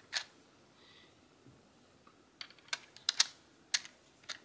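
7.7 mm Japanese cartridges being pressed one by one into a Type 99 Arisaka's internal magazine, each going in with a sharp metallic click. There is one click just after the start and a quick cluster of clicks between about two and a half and four seconds in.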